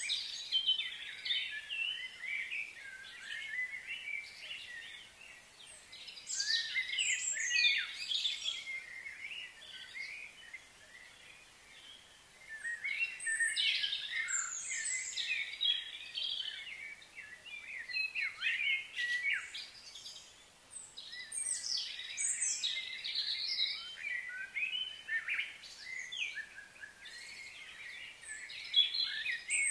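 Birds chirping and calling in a dense, irregular chorus of short high chirps, swelling and easing in clusters.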